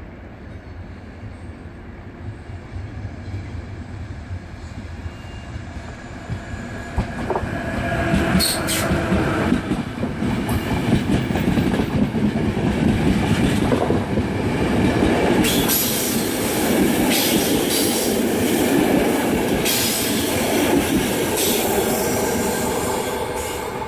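Passenger train running into the station. The rumble grows much louder about eight seconds in, with wheel squeal from the flanges and the clack of rail joints.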